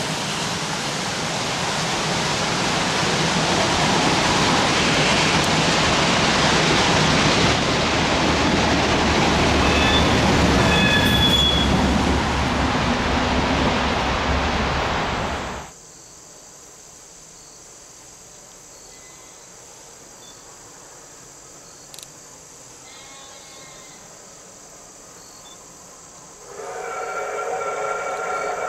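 Passenger coaches of a steam excursion train rolling past: a steady rumble and clatter of wheels on rail, with a short squeal of high notes about ten seconds in. This stops abruptly at about sixteen seconds, leaving a quiet background, and near the end a train's whistle sounds, several notes at once.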